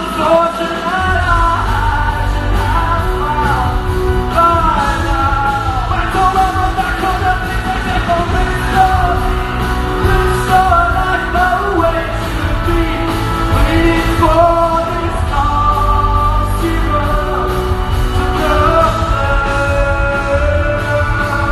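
Live rock band performance with singing over a steady bass and drum beat.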